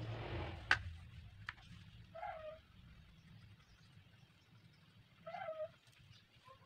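A bird calling twice, a short pitched call about three seconds apart, with a sharp click about a second in.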